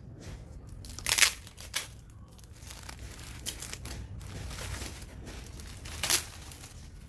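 Packing wrap crinkling and tearing as a boxed cactus is unwrapped by hand. There are sharp rustles just after a second in and again near the end.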